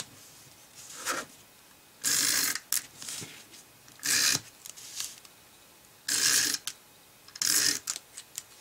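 Adhesive glue-tape runner pulled along the edge of card stock in four short strokes, each under a second, roughly every two seconds, its dispensing mechanism clicking and rasping as the tape goes down.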